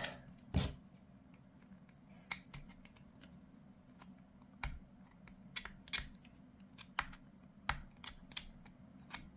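Scattered sharp clicks of small plastic miniature parts and hobby tools being handled during assembly, about a dozen spread irregularly through the stretch, over a low steady hum.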